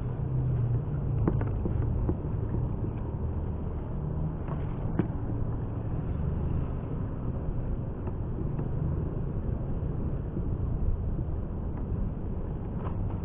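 Steady low rumble of road traffic on the elevated toll road, with a couple of faint clicks.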